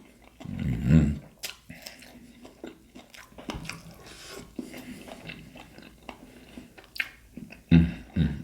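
Close-up chewing and biting of crisp fried seafood, with many small crunches and mouth clicks. Two short low hums break in, about a second in and again near the end.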